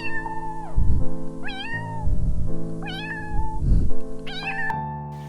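Cat meowing four times, short high-pitched meows about a second and a half apart, over background music with a low beat.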